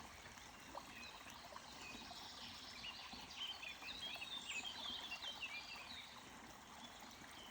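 Faint steady rush of running stream water, with small birds chirping repeatedly over it, most busily in the middle.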